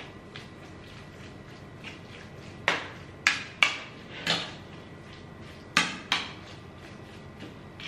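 A metal spoon knocking and scraping against a plate while mashing and mixing soft food: about six sharp clacks, bunched between about two and a half and six and a half seconds in, with fainter taps between them.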